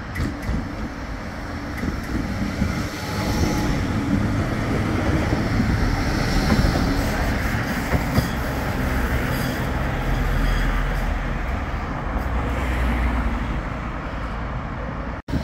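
Bombardier Flexity 2 light rail tram approaching and running past close by on its track. Its running noise swells to a peak as it passes, with a couple of sharp clicks about eight seconds in, then eases off as it moves away.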